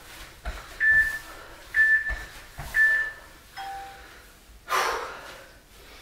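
Workout interval timer sounding a countdown: three short high beeps about a second apart, then a lower final beep marking the end of the exercise interval. Under them are soft thuds of jump squats landing on an exercise mat, and a loud exhale follows near the end.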